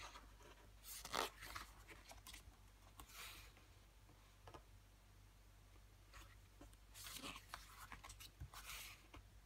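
Pages of a CD photo booklet being turned by hand: faint paper rustling and sliding in two bouts, about a second in and again around seven seconds in, with a few light taps between.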